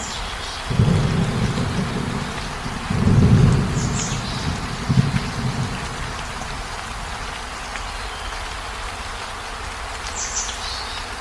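Steady heavy rain, with low rolls of thunder rumbling through the first half that die away after about six seconds, leaving the rain alone.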